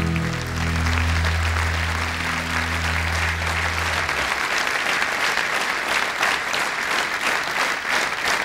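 Theatre audience applauding at the end of a song. Under the first four seconds of clapping, the song's last chord on bass guitar and acoustic guitar rings out, then stops; single claps stand out more clearly near the end.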